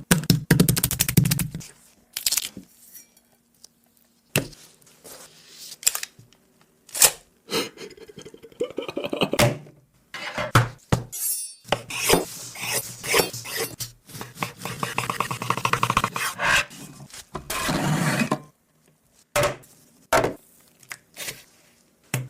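A run of short kitchen sounds: dishes and cutlery clinking, knocking and scraping, broken by brief silent gaps.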